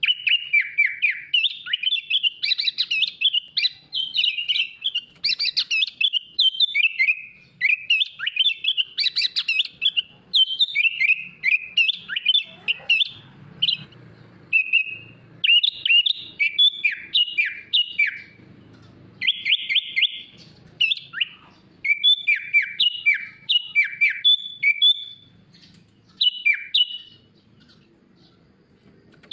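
Sooty-headed bulbul singing a long, varied run of quick chirping phrases, with short pauses about halfway through and near the end.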